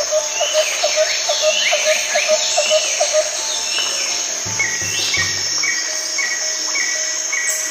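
Forest ambience: a steady high insect drone with birds calling, a fast run of repeated chirps and falling whistles, then from about halfway a series of short, evenly spaced notes about two a second.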